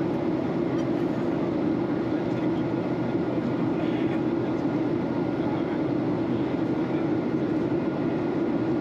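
Steady in-flight cabin drone of a Boeing 737-800, heard from a window seat beside the wing: the CFM56 turbofan and the rush of airflow blend into an even, low hum that holds constant without change.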